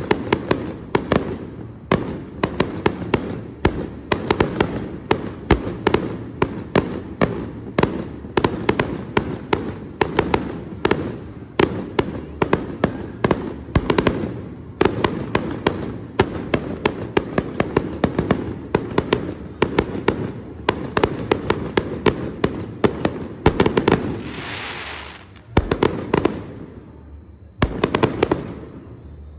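Aerial fireworks shells bursting in a rapid, dense barrage of bangs and pops. About 24 seconds in, a hiss lasts a second and a half, followed by a short lull and then more bangs.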